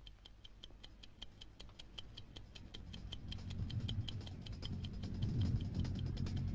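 Steady mechanical ticking of an aircraft cockpit clock, about five ticks a second. A low hum swells up under it from about halfway through.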